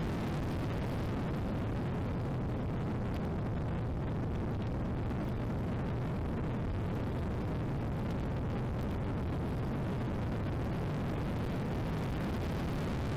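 Steady heavy wind buffeting on the microphone over the running noise of an Ariel Atom 3 Supercharged's open cockpit at speed, an even low rumble that does not rise or fall.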